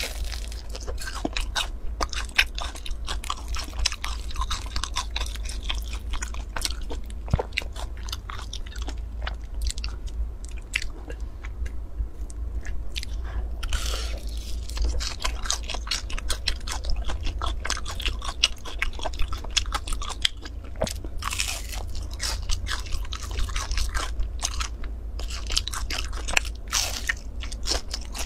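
Close-up biting and chewing of a crisp-crusted cake, the crust crunching in many sharp crackles, over a low steady hum.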